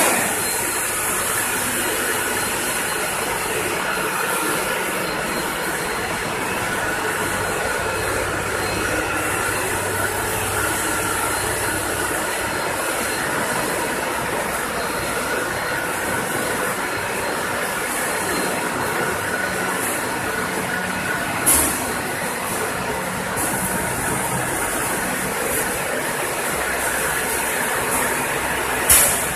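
Continuous frying line machinery running: a steady mechanical rumble and clatter of motors and conveyor belts, with a constant hiss over it. A brief louder noise cuts in twice, once about two-thirds through and again near the end.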